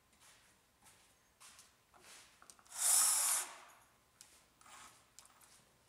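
A small cordless drill/driver runs once for under a second, about three seconds in, spinning a screw into a wooden board. A few faint clicks come before and after it.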